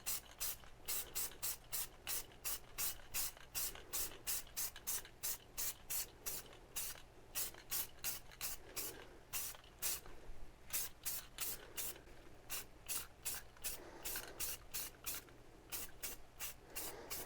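Aerosol can of black spray paint spraying in short, quick bursts, about three a second, as parts are coated.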